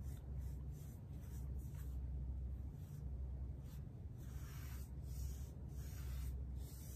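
Paintbrush swishing back and forth as it spreads black stain across the wooden face of a sled in long strokes: a series of soft, brief swishes at uneven intervals, over a steady low hum.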